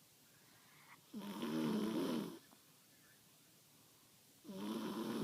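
A sleeping girl snoring loudly: two long snores, each over a second, about three and a half seconds apart.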